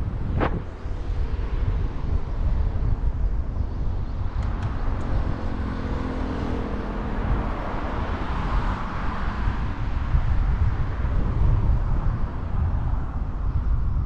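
A vehicle passing, its noise swelling about eight to ten seconds in over a steady low rumble.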